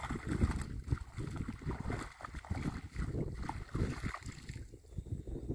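Wet cast net being hauled out of a shallow ditch, water splashing and pouring from the mesh, over an uneven low buffeting rumble.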